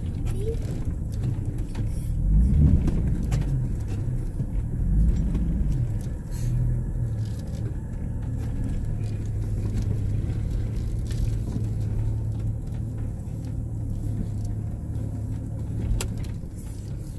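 Off-road truck engine running under load, heard from inside the cab: it grows louder twice, about two and five seconds in, then settles into a steady low drone, with a single click near the end.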